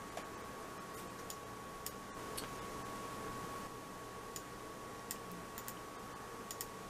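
Buttons of a PICTEK wired gaming mouse clicking, a dozen or so scattered single and paired clicks while text is selected and right-clicked. A faint steady high whine runs underneath.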